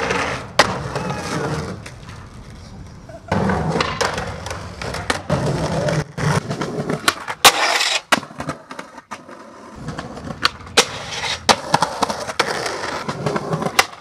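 Skateboard wheels rolling over concrete, broken by many sharp clacks of the board popping and landing and the scrape of its trucks on a concrete ledge and a metal handrail.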